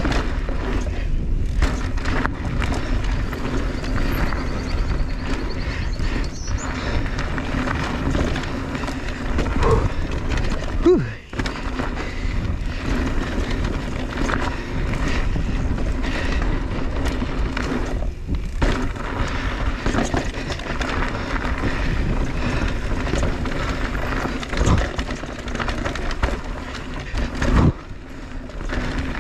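Riding noise of a Mondraker Crafty Carbon R electric mountain bike on a dirt trail: tyres rolling over the ground, the bike rattling and wind on the microphone, with a steady low hum and a few sharp thumps over bumps.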